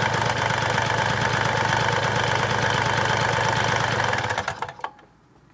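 Honda Stream engine running steadily with a rattling knock from a worn connecting-rod big-end bearing that has play in it. A little over four seconds in it is switched off, runs down unevenly and stops.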